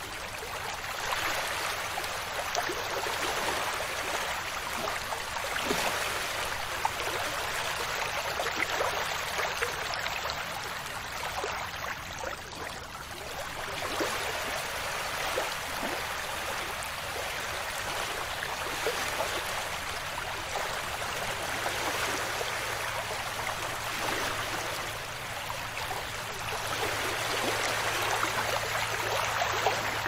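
Small waves washing onto a sandy beach: a steady hiss of water that swells and fades every few seconds.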